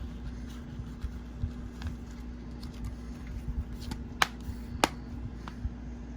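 Hands handling a plastic multi-disc DVD case: small taps and rustles, then two sharp clicks, about four and about five seconds in, over a steady low hum.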